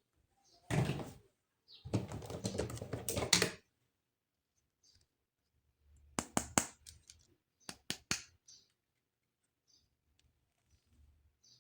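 Plastic toy packaging and toy parts being handled up close: a short rustle, a longer stretch of rustling, then two quick groups of sharp plastic clicks.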